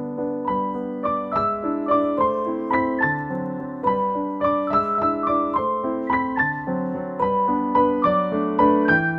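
Background music played on piano: a melody of quick single notes over held chords.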